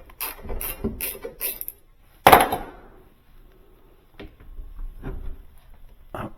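Metal hardware and tools clinking during refrigerator door hinge work: a quick run of light clicks, one loud sharp metallic knock about two seconds in, then a few quieter knocks.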